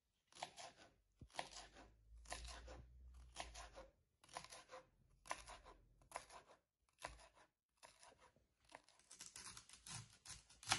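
Kitchen knife slicing through a crisp celery stalk on a wooden chopping board: a steady series of short crunchy cuts, about one every 0.7 seconds. Near the end the cutting turns quicker and denser as the knife goes through fennel stalks.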